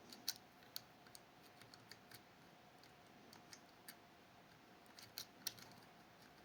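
Faint, scattered metallic clicks of a lock pick working the levers of a Fichet 484 lever sidebar lock, with a quick cluster of clicks near the end, over a faint steady hum.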